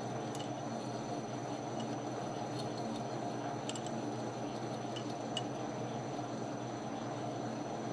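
Metal lathe running steadily while a twist drill bores into the magneto-side half of a 1977 Suzuki RM125 crankshaft in the spinning chuck, with a few faint ticks from the cutting chips. This is the final drill size, opening the hole for a press-fit replacement stub.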